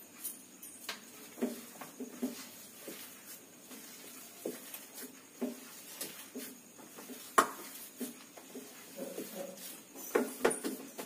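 Kitchen handling sounds while mashed potato filling is worked in a metal pan: scattered knocks and clinks against the pan, the sharpest about seven seconds in, with a quick cluster near the end. Short low whining sounds come between them.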